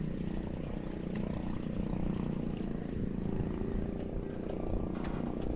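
Strong wind buffeting the microphone, a gusty low rumble with a faint steady drone underneath.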